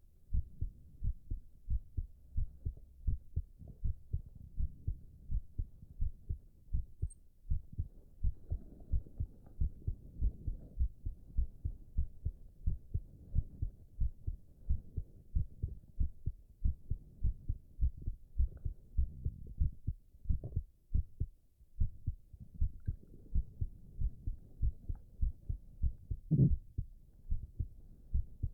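A man's heartbeat heard close up: a steady, even run of low thumps throughout. Stretches of low stomach rumbling come in about a third of the way in and again near the end, and one loud thump stands out near the end.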